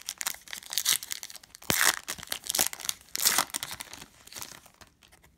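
Foil wrapper of a trading-card pack being torn open and crinkled by hand: a run of sharp crinkling rustles, loudest in three bursts, dying away near the end.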